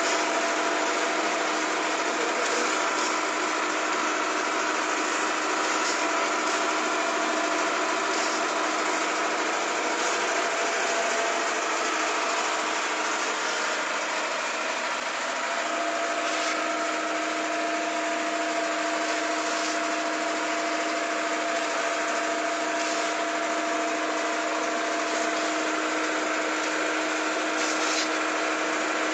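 Vegetable harvesting machine with a conveyor of steel bowls running steadily: a continuous machinery hum with several steady tones and a few faint clicks.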